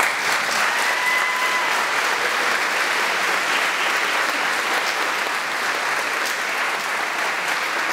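Audience applauding steadily at the close of a speech, a dense even clapping that starts abruptly.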